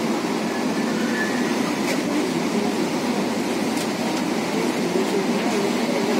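Metro train running noise heard from inside the coach: a steady rumble and hiss of wheels on rail and running gear as the train pulls into a station platform.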